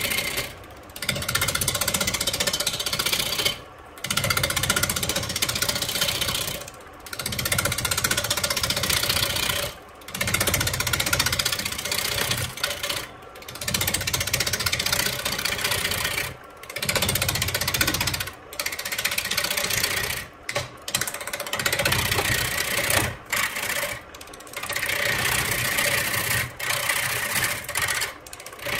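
Wood lathe spinning a large wooden vase blank while a hand-held turning tool cuts into it, making a loud, continuous noise. The noise breaks off briefly about every two to three seconds, roughly ten times.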